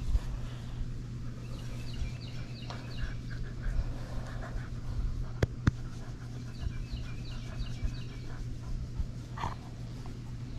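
Dog panting, with two short bursts of birds chirping in the background and two sharp clicks about halfway through.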